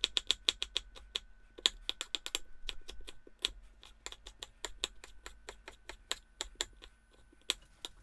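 Chef's knife mincing a jalapeño pepper on a round wooden chopping board: quick, irregular taps of the blade on the wood, several a second, thinning out near the end.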